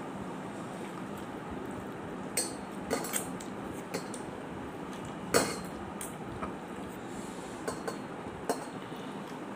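Rice and fish curry being eaten by hand from a metal plate: fingers, a ring and bangles knock and clink against the plate in scattered sharp clicks, the loudest about halfway through, over a steady background hiss.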